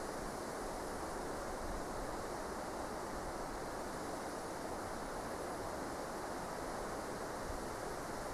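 Steady, even rushing background noise with no distinct events; nothing from the mouse stands out.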